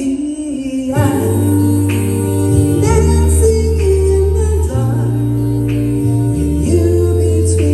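A pop song sung live by a vocal duo over a backing track, with a steady bass line and held chords under the singing.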